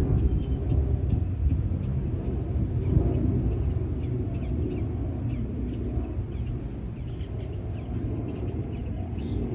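Wind buffeting the microphone as a low, uneven rumble, with small birds chirping faintly now and then. The rumble eases a little after about five seconds.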